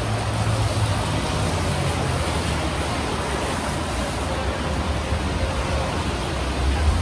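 Steady low rumble and hiss of a vehicle on the move: road and engine noise.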